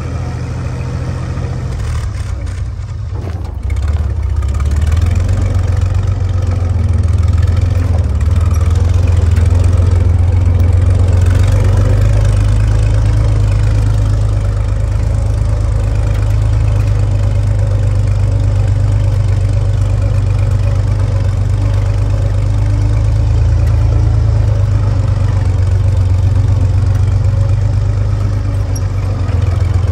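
1944 Willys jeep's four-cylinder flathead engine running as the jeep drives up a dirt trail. It eases off briefly about three seconds in, then pulls louder and steadily.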